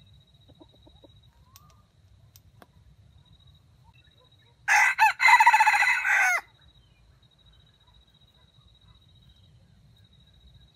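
Red junglefowl rooster crowing once, about halfway through: a short crow of two quick notes and a longer final note that falls in pitch at the end.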